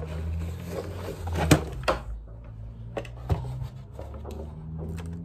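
Items being handled on a desk: a few sharp knocks and clicks, the loudest about a second and a half in, with lighter handling noise between.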